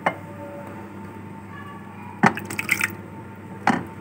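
Thick yogurt-and-milk mixture poured onto diced potatoes in a bowl, with wet slopping and squelching, and three sharp clinks of dishware, the loudest about two seconds in.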